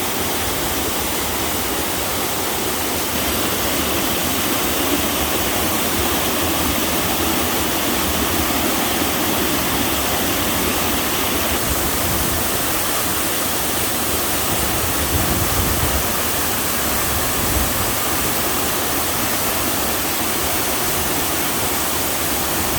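Waterfall: water pouring steadily over a rock fall into a mountain-stream pool, a loud, even rush.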